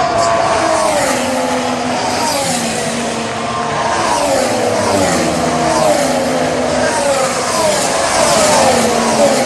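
Formula One cars' 1.6-litre turbocharged V6 hybrid engines running at racing speed, several engine notes overlapping, their pitch rising and falling again and again.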